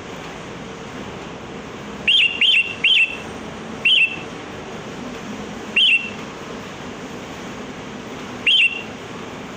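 Sooty-headed bulbul giving short, sharp calls: a quick run of three about two seconds in, then single calls a second or two apart, over a steady background hiss.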